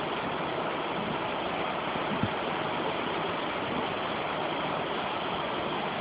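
Storm-swollen backyard stream rushing steadily, a continuous even wash of flowing water that sounds like a river.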